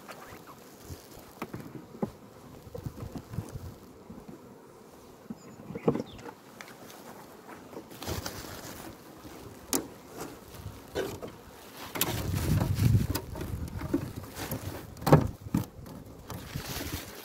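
Honeybees buzzing around open hives, with scattered knocks and clicks throughout. A louder stretch of low rumbling and knocks comes about twelve seconds in, with a sharp knock shortly after.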